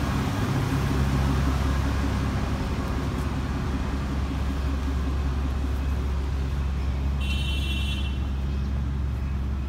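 Steady low drone of a standing passenger train's diesel engine idling, with a brief high whine about seven seconds in.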